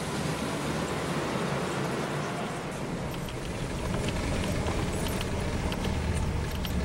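Pickup truck driving along: steady engine and road-noise rumble, heard from inside the cab in the later part, with a few faint clicks.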